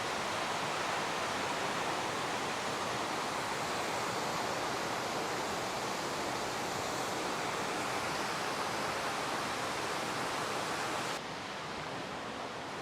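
Waterfall: a steady rush of falling water that turns suddenly a little quieter about eleven seconds in.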